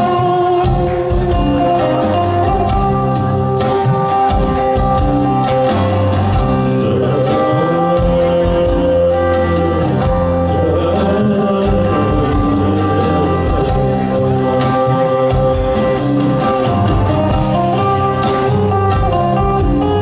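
A rock band playing live: drum kit, guitars and singing, with steady beats on the drums.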